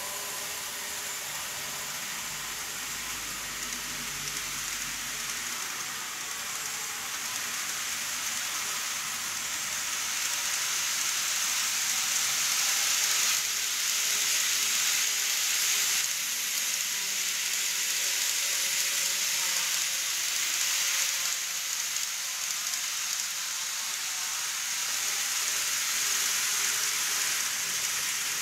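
N-gauge model train running on plastic viaduct track: a steady, hissing rattle of small wheels on the rails, with a faint steady motor whine. It grows louder about ten seconds in as the train passes close, and stays up until near the end.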